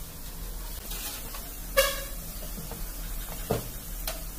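A vehicle horn gives one short toot about two seconds in, and a light knock follows about a second and a half later. A steady low hum runs underneath.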